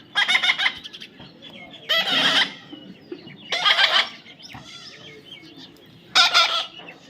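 A parrot squawking loudly four times, each call about half a second long.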